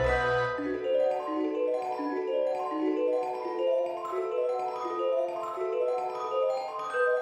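Background music: a light melody of short mallet-percussion notes stepping up and down at about three or four a second, with a fuller, bass-backed passage fading out about a second in.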